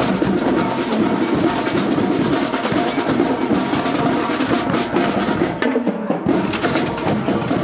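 School marching band passing close by, its drumline's snare and bass drums carrying a steady stream of beats over the band.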